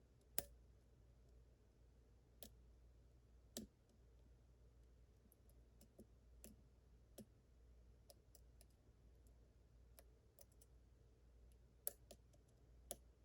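Faint, scattered clicks of a lock pick and tension wrench working the pins of a Yale Superior 1-star lock cylinder, about eight sharp clicks at irregular intervals, over a faint steady low hum.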